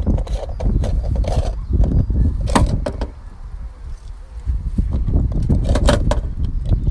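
A bunch of car keys jangling while a car's fuel filler cap is unscrewed and handled, with a few sharp clicks and clinks, over a constant low rumble.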